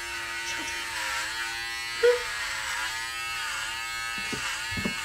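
Electric hair clippers buzzing steadily as they shave through long hair, the pitch sagging now and then as the blades bog down in the hair. A brief louder tone comes about two seconds in.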